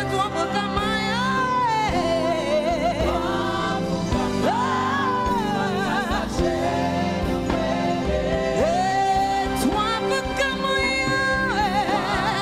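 Gospel song: a woman's lead voice singing long held notes with vibrato, sliding up into some of them, over steady instrumental backing.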